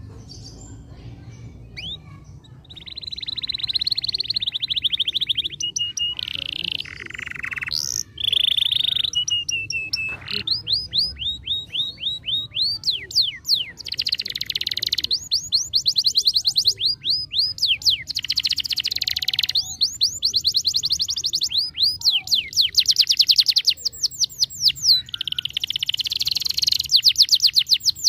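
Canary singing a long song: dense rapid trills begin about three seconds in, followed by fast runs of repeated sweeping notes, phrase after phrase with brief gaps.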